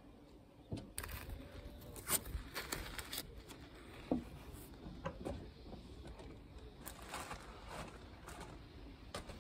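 Crinkling and rustling of yellow masking tape and blue paper towel being handled and crumpled. A quick run of crackles starts about a second in, and another comes around seven seconds.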